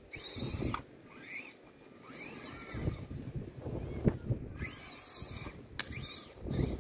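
Axial SCX24 1/24-scale RC crawler with its Injora 050 motor and metal transmission gears whining, rising and falling as it is driven over dirt. A couple of sharp knocks come about four and six seconds in.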